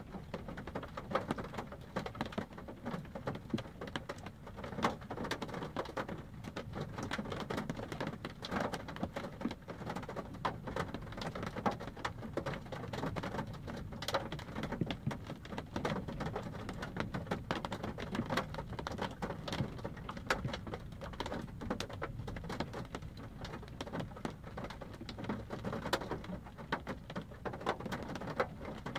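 Rain falling on a car's roof and windshield, heard from inside the car: a steady patter of many small drop impacts.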